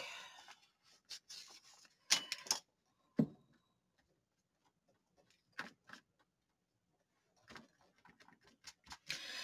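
Faint, scattered taps and short rubs of a paintbrush and fingertips dabbing paint onto paper, a handful of small ticks with quiet gaps between them.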